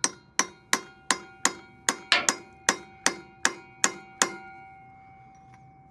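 Steel hammer blows restaking the 24 mm stake nut on a Toyota Tacoma drive shaft, driving the nut's collar back into its notch. About a dozen sharp metallic strikes, roughly three a second, stop about four seconds in, leaving a ringing tone that fades.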